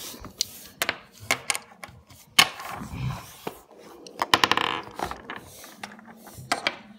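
Handling noise on a wooden table: irregular light clicks and knocks with brief rubbing, a quick cluster of clicks and a scrape about four to five seconds in.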